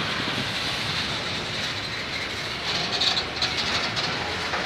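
Empty open freight wagons of a bauxite train rolling past: a steady rumble of steel wheels on rail, with a burst of louder metallic clatter and clicking from about three seconds in.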